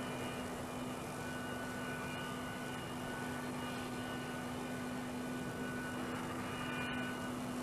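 Steady aircraft engine drone, an even rushing noise with a constant low hum under it and no change in pitch or level.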